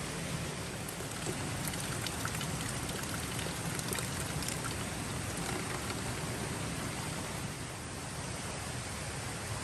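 Steady rain, with individual drops ticking sharply on a nearby surface during the first half.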